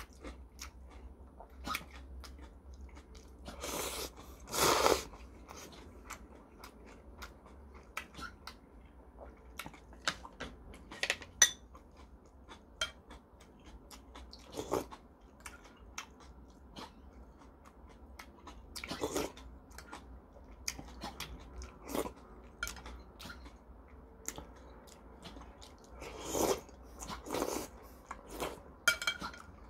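A person eating ramen noodle soup: chewing and slurping noodles and broth, with louder slurps about four to five seconds in and twice near the end, and small clicks of chopsticks and spoon against the bowl.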